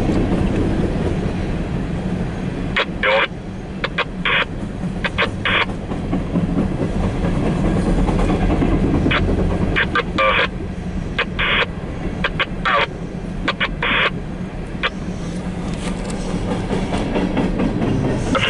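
Empty CSX coal train's hopper cars rolling past, heard through a car's windshield: a steady rumble with irregular clicks and clanks from the wheels and cars.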